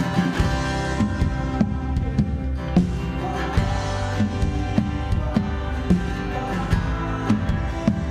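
Instrumental worship band music with strummed guitar and a steady beat.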